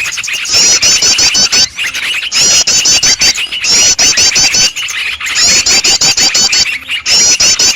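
Bird-lure recording of small songbirds: a dense chorus of chattering calls, with bouts of fast, high, repeated chirps about eight to ten a second, each bout lasting about a second with short breaks between. It is played to draw small wild birds in for trapping.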